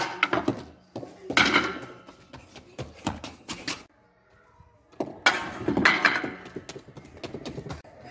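A cricket ball hits wooden stumps and knocks them clattering down onto a tiled floor, a sharp loud crack at the start, followed by more wooden knocks and clatters mixed with bursts of excited voice.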